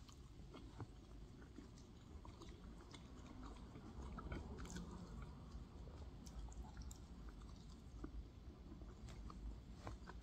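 Faint close-up chewing of a pork momo dumpling, with small mouth clicks and smacks scattered throughout.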